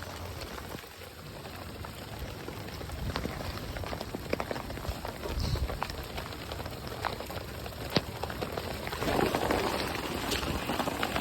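Heavy rain falling, with many separate drops tapping close by; it grows louder about nine seconds in.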